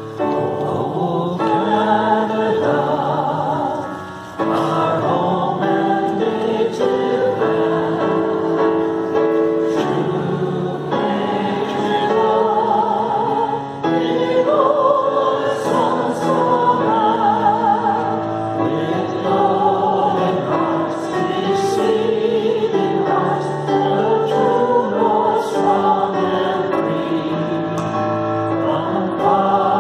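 Music of a choir singing, with long wavering held notes, briefly dipping about four and fourteen seconds in.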